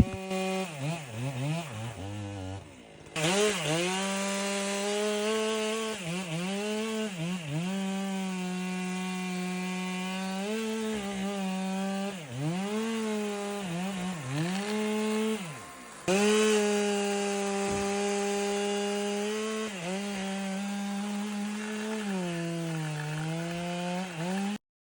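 Chainsaw running at high revs while cutting wood, its pitch sagging again and again as the chain bites into the cut and then climbing back.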